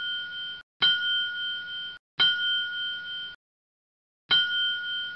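A bright two-tone bell ding, repeated: each chime rings for about a second and fades, with four heard and a longer pause before the last.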